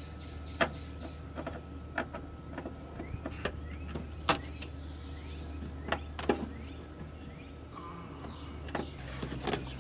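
Scattered clicks and light knocks of a screw being worked out from behind the interior door handle of a door trim panel, over a steady low hum.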